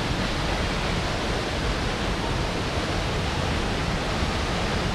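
Steady, unbroken rushing of a large waterfall, water pouring over a cliff.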